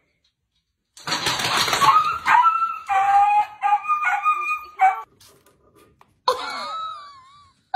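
A husky-type dog yelping and whining in a rapid string of high, wavering cries, starting about a second in and lasting about four seconds.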